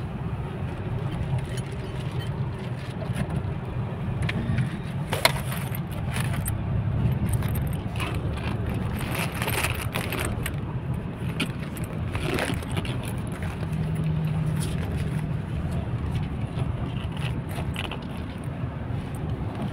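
Steady low road and engine rumble heard inside a moving car, with a few scattered short clicks and rustles.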